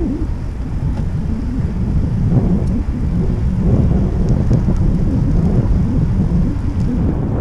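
Wind buffeting the microphone of a camera riding on a moving bicycle: a loud, steady, uneven low rumble, with a few faint light ticks over it.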